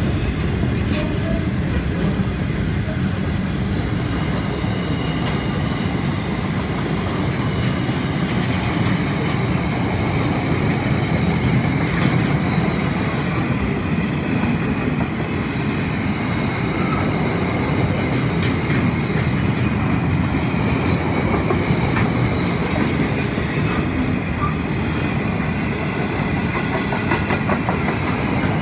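Freight train's container and flat wagons rolling steadily past: a continuous rumble and rattle of steel wheels on rail.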